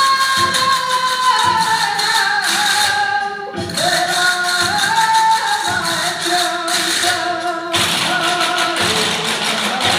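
Flamenco music: a voice singing a wavering, drawn-out melody over sharp percussive strikes.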